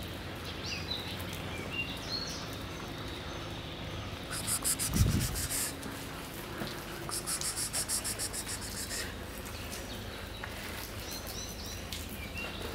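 A crinkly cat-food bag rustles and dry kibble rattles out of it in two bursts, a little after four seconds in and again from about seven to nine seconds, with one dull thump near five seconds. Birds chirp at the start and again near the end.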